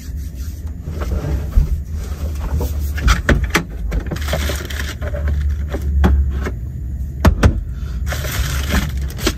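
Items being rummaged through and moved about in a truck cab's overhead storage locker: scattered clicks, knocks and rustling, over a steady low hum.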